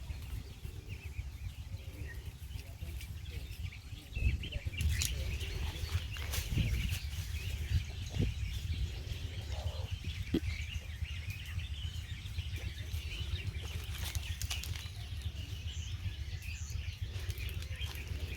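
Outdoor rural ambience: birds chirping over a steady low rumble, with a few scattered clicks and knocks.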